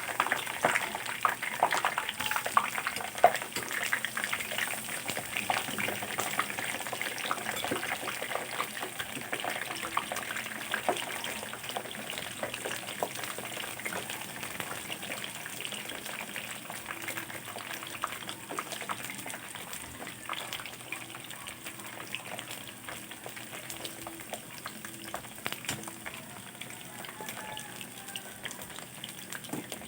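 Eggplant frying in a pan of hot oil: a steady sizzle full of dense crackling, busiest just after the start and gradually settling down.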